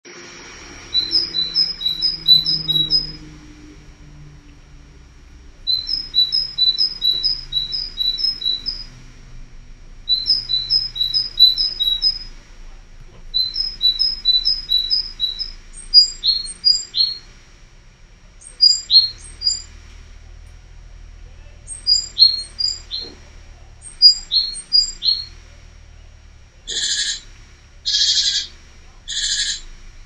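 Small birds singing and calling: bursts of rapid, high two-pitched notes repeated every few seconds, then pairs of short notes sliding downward, and near the end a run of harsher, fuller calls about once a second.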